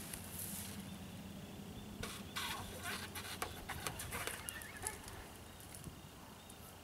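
Liquid-filled rubber balloon squeezed and kneaded by hand overhead, giving a quick run of rubber squeaks and crackles between about two and five seconds in as it gives way and leaks its contents.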